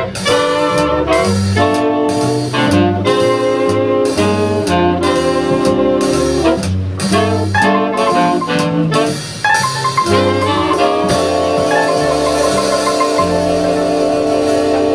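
A jazz big band playing live: saxophones and trumpets in ensemble chords over upright bass and drums, the chords moving in short punches for the first part. From about eleven seconds in, the band holds one long chord.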